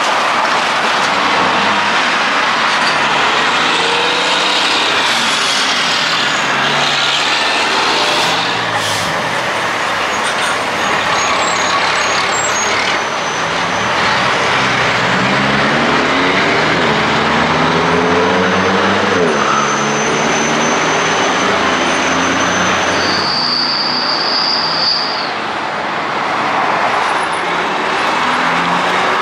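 Heavy traffic with semi trucks' diesel engines pulling away and passing close by, their pitch rising and falling as they work through the gears. A brief high squeal about three-quarters of the way through.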